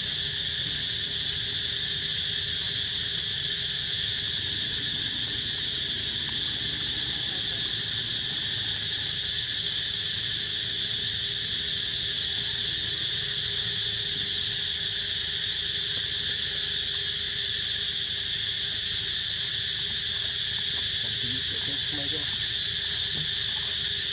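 A steady, high-pitched insect chorus: a continuous shrill drone that holds at an even level.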